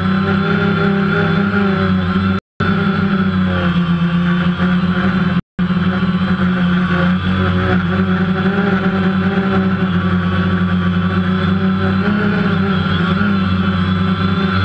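DJI Phantom quadcopter's motors and propellers buzzing steadily, heard loud and close from the GoPro mounted on the drone, the pitch wavering slightly as it flies. The sound cuts out briefly twice, a couple of seconds in and about five seconds in.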